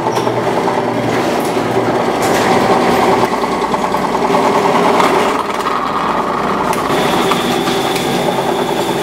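Benchtop drill press running steadily, its bit boring holes through plastic bottle caps.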